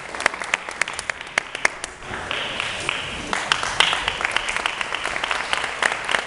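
Audience applauding: a few scattered claps at first, building into fuller applause about two seconds in.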